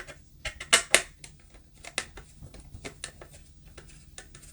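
Screwdriver backing a trim screw out of a plastic interior trim panel: a run of irregular sharp clicks and ticks, loudest just under a second in, then lighter.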